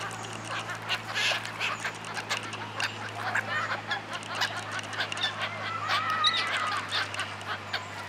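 A flock of black-headed gulls calling over the water, with many short harsh calls overlapping and a run of wavering calls about six seconds in. Wing flaps and splashes come in among the calls.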